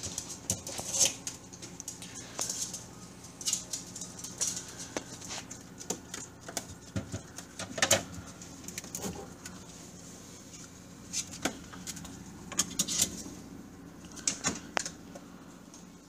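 Pet skunks' claws scrabbling and clicking on a refrigerator's plastic drawers and shelves as they climb at the open fridge, in irregular bursts of sharp taps and scratches over a steady low hum.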